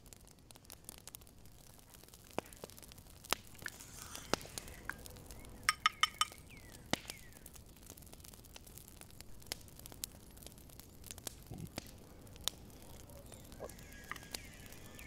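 Dishes and utensils being handled: scattered light clicks and taps, with a quick run of several ringing clinks about six seconds in. Near the end a small glass bowl is set down on a ceramic plate with a light clink.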